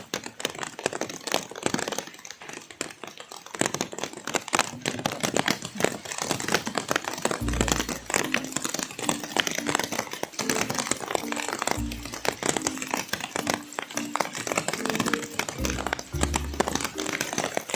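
Background music with a recurring bass line, over a dense, steady crackling of rain drops striking the plastic bag wrapped around the recording phone.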